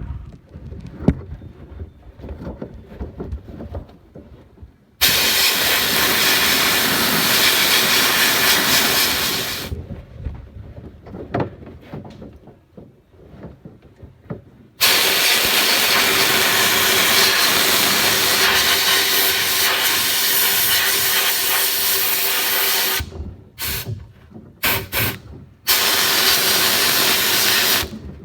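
A sandblaster blasting in bursts, a loud steady hiss of compressed air and abrasive. There is one blast of about five seconds, then a longer one of about eight seconds, then several short blasts near the end. Quieter knocks and rattles from the parts being handled come between the blasts.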